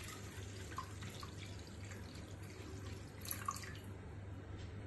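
Thin fermented kanji liquid dripping from a glass bottle into a glass bowl as the pour tails off. A few separate drips fall, the clearest about three seconds in.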